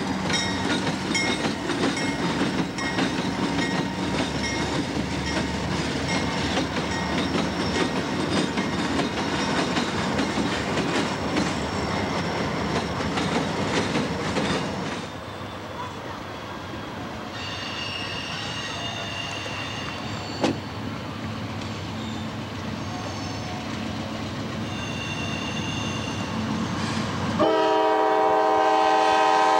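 Freight train of covered hopper cars rolling past close by, the wheels rumbling and clicking over the rail joints. After a cut the sound is quieter, with high wheel squeal twice, and near the end a CSX diesel locomotive's horn blows loudly.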